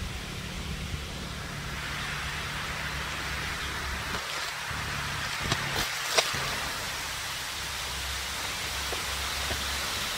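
Steady outdoor background noise, a low rumble under a hiss, with two short sharp clicks a little past halfway.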